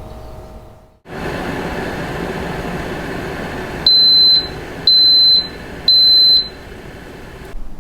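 A steady whirring noise starts about a second in and runs until near the end. Three loud, high electronic beeps, about a second apart, sound over it midway.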